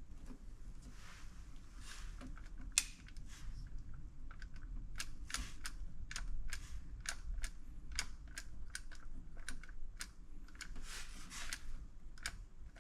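An uneven run of small sharp clicks and taps, a couple a second, from hands working at the power-window switch wiring while testing for power to the window motor; one louder click comes about three seconds in.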